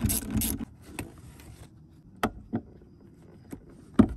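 Ratchet wrench clicking rapidly as it tightens the 10 mm nut on the battery's negative terminal clamp, stopping under a second in, then a few separate clicks and knocks of tool handling.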